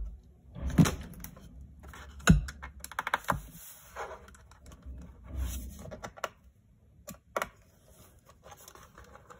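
Scattered sharp clicks and taps of a small screwdriver and fingers against the aluminium bottom case of a MacBook Pro as its case screws are taken out, with a quick run of clicks about three seconds in.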